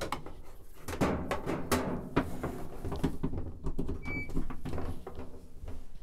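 Knocks, clicks and clatter of handling around a washing machine as its power cord is plugged back in, with one short electronic beep about four seconds in.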